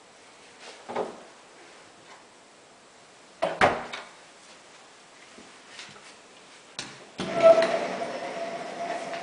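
An interior sliding door being handled: a knock about a second in, a louder knock with a rattle around three and a half seconds, a click, then a steady rolling rumble as the door slides open along its track near the end.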